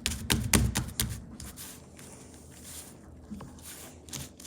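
Hands pressing and folding fluffy cloud slime to trap air, with a quick run of sharp clicks and pops in the first second or so, then quieter squishing with a few isolated pops.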